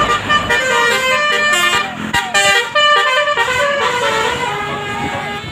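Basuri horn, an Indonesian multi-note melodic bus horn, playing a quick tune of short stepped notes that jump up and down in pitch.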